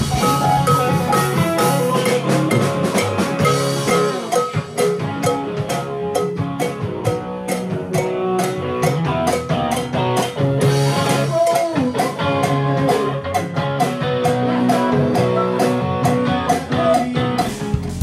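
Band music: electric guitar played over a steady drum-kit beat in a bluesy rock tune.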